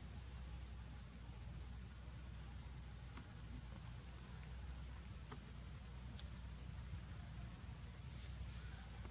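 Steady high-pitched insect drone in the surroundings, over a low rumble, with a few faint ticks.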